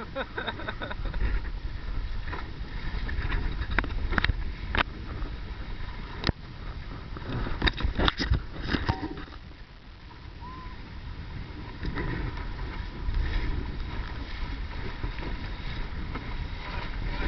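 Wind buffeting the microphone and water rushing along a small sailing dinghy's hull under way. A scatter of sharp knocks and clicks comes in the first half.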